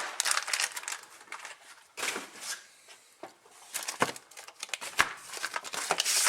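Rustling and crinkling of packaging being handled, in irregular bursts, with sharp clicks about four and five seconds in.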